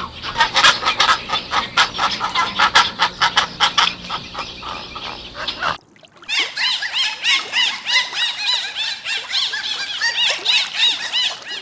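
Many animals calling over one another. After a cut about six seconds in, a crowd of short, high peeps repeating rapidly from a group of birds.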